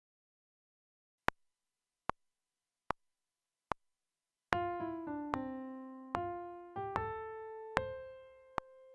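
Four evenly spaced count-in clicks about 0.8 s apart, then a sampled grand piano plays a single-line melody that steps down and then climbs, the passage set for a rhythm dictation.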